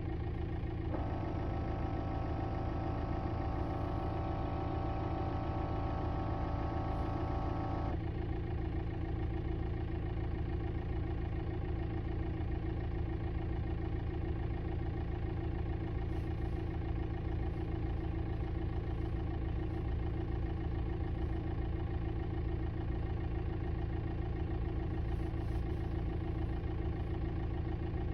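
2006 VW Jetta TDI's four-cylinder diesel engine idling steadily, heard with a buzz from behind the passenger-side dashboard that starts about a second in and stops abruptly several seconds later.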